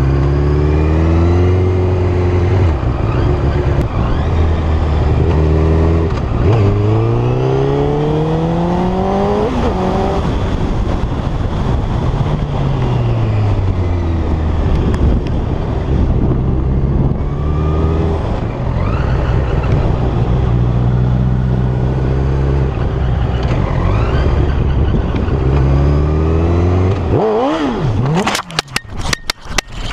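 Sport motorcycle engine accelerating hard through the gears, its pitch climbing and falling back at each shift, several times over. Near the end a quick run of sharp knocks and scrapes as the bike crashes.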